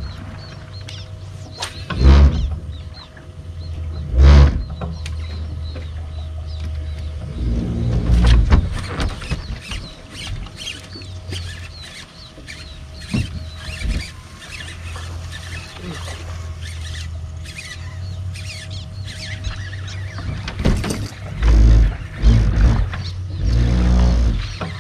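Wind buffeting an outdoor microphone in loud gusts, with three close together near the end, over a steady low hum and a faint steady whine.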